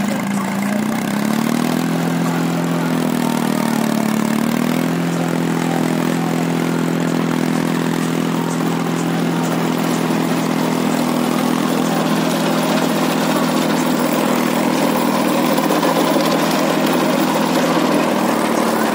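Small tractor's diesel engine running under load and driving a rear-mounted rotavator that churns through soil and banana stumps. The engine speed rises about a second in, dips briefly near four seconds, then holds steady.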